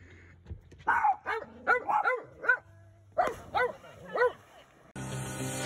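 A dog barking in two quick runs of short, high yips. Rock music cuts in abruptly near the end.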